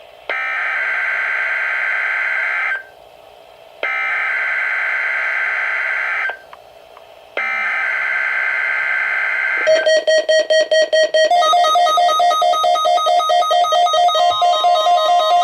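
Three bursts of NOAA Weather Radio SAME digital header tones, each a raspy data buzz about two and a half seconds long with short pauses between, sent for a Required Weekly Test. From about ten seconds in, weather radio receivers (a WR-100 and a WR-301) set off by the tones sound their alert, a loud, fast, pulsing electronic beeping.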